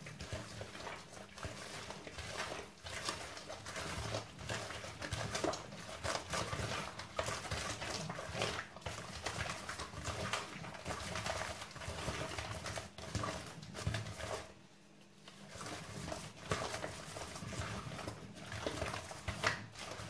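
Hands squeezing and mixing a wet dough of softened butter, sugar and eggs in a wooden bowl: steady, irregular squishing and scraping, with a short pause about fifteen seconds in.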